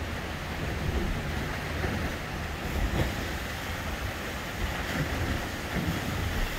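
Ocean surf washing and churning through a narrow basalt rock channel: a steady rushing with a low rumble that swells now and then.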